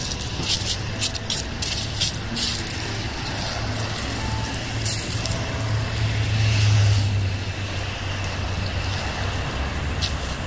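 Road traffic passing, one vehicle's low rumble swelling up and easing off around the middle, over a steady street hiss. Crisp footsteps at walking pace in the first couple of seconds and again near the end.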